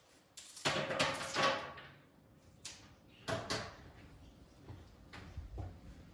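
A few short bursts of handling noise, scraping or rustling, the longest about a second in.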